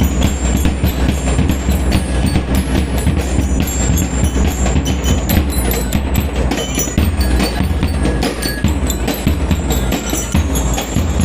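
Lyre and drum band playing: bell lyres ringing the melody over a steady beat of snare and bass drums.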